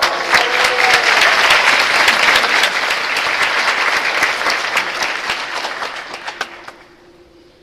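Audience applauding, loud at first, then dying away about seven seconds in.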